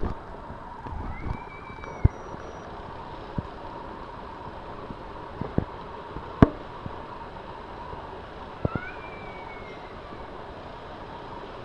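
Two drawn-out cat yowls, rising and falling, one about a second in and another near nine seconds, from cats in a fighting standoff. A few sharp knocks come in between, the loudest about six and a half seconds in.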